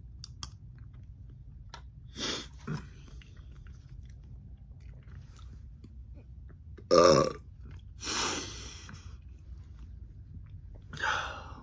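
A person belches loudly once, a deep pitched rumble lasting under a second, a little past the middle, then breathes out heavily. Softer mouth sounds and small clicks come before and after.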